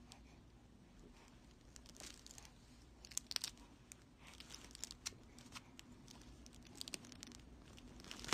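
Soft crinkling and rustling from a baby's plush crinkle toy as her hands grab and squeeze it, in short scattered spells.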